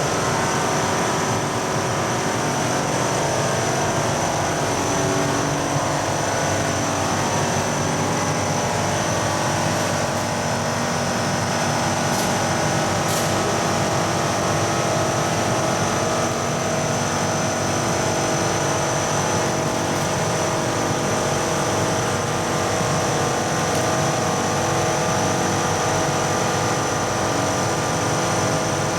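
A machine running steadily with a constant drone and hum, holding the same pitch and level throughout.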